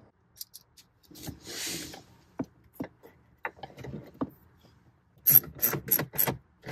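Small metal clicks and taps as a bolt is handled and fitted into the dash's stereo mounting bracket with a hand driver, with a short plastic-bag crinkle about a second in. Near the end comes a quick run of four sharp clicks as the bolt is turned in.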